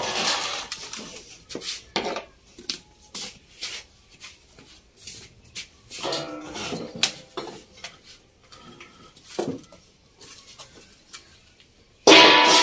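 Scattered clinks and knocks of steel dishes and utensils being handled and set down, with a louder clatter near the end.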